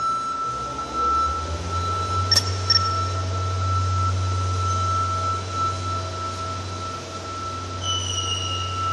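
Overhead hangar crane's hoist motor running with a steady low hum, over a thin high whine, with two sharp metallic clinks about two and a half seconds in and a short falling high tone near the end.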